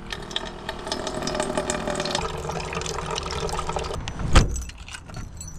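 Water poured from a bottle into a stainless steel dog bowl, splashing and ringing in the metal bowl for about four seconds before stopping. A single loud thump follows about a second later.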